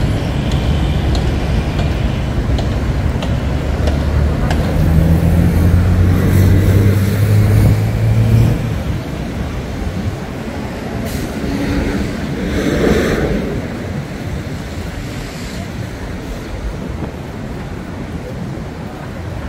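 City traffic noise at a busy intersection: a nearby vehicle's engine hum is strong for the first eight seconds or so, then drops away, leaving a steadier, quieter background of passing traffic.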